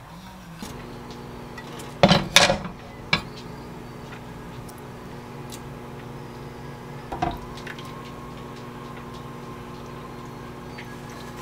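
Kimchi stew being ladled from a metal pot into a ceramic bowl: a cluster of sharp clinks and knocks of utensil on cookware about two to three seconds in and one more about seven seconds in, with soft wet scooping between. A steady low hum runs underneath.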